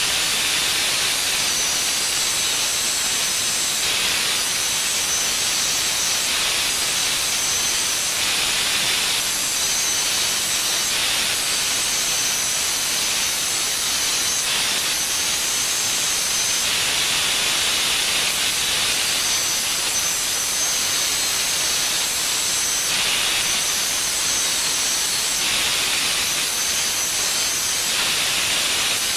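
Plasma cutter hissing steadily as it cuts through the old welded steel bracket on the mower deck. A thin high whine in the hiss drops out and comes back every few seconds.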